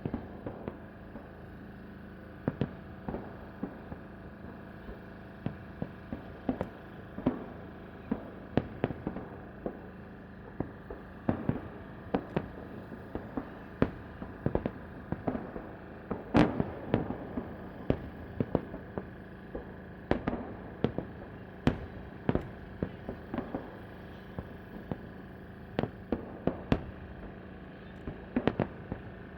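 Fireworks salute: many shell bursts cracking and popping at irregular spacing, about one or two a second, with the loudest cluster about halfway through.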